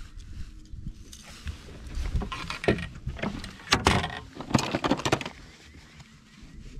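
Rustling, clicking and clattering as a caught fish is handled and unhooked on a boat deck, in an irregular run of knocks that is busiest from about a second and a half to five seconds in.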